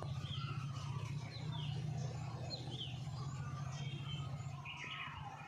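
Small birds chirping in short, quick falling notes, over a steady low hum that fades toward the end.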